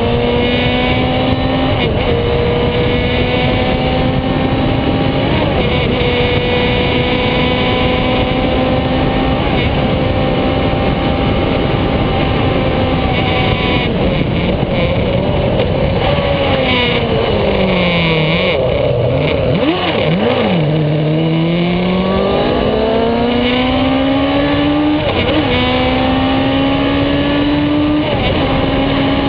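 Onboard sound of a Radical sports racer's engine at high revs, pulling through quick upshifts, each marked by a short drop in pitch. About two-thirds through the revs fall steeply with a few short blips on the downshifts, then climb again through the gears. Wind rush over the open cockpit runs underneath.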